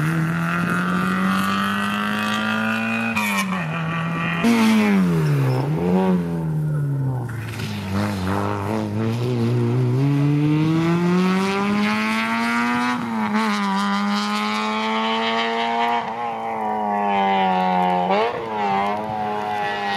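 Rally hatchbacks at speed on a tarmac special stage, their engines running hard, the note climbing and dropping repeatedly through gear changes, lowest about eight seconds in before a long rise.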